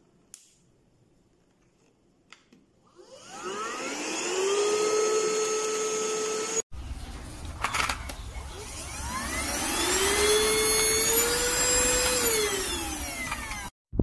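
Handheld dust mite vacuum cleaner's motor switched on twice, each time whining up in pitch to speed and running steadily; the second run winds down in pitch near the end. A few light clicks come before each start.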